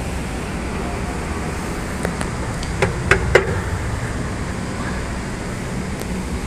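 Shanghai Mitsubishi J Series escalator running, a steady low rumble, with a few sharp clicks close together about three seconds in.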